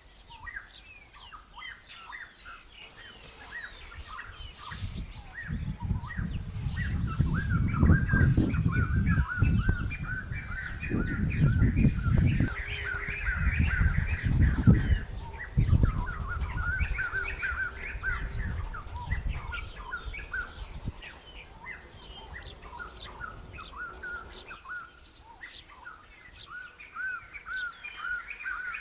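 Many small birds chirping and twittering throughout. A loud low rumble joins them about five seconds in, swells twice and dies away about twenty seconds in.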